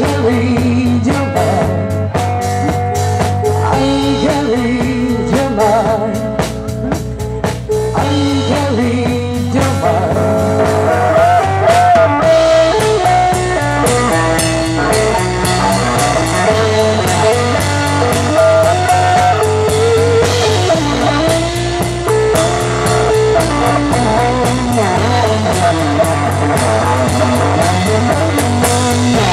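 Live bluesy rock band playing: electric guitar, electric bass and drum kit keep a steady beat under a repeating bass line, with a woman singing.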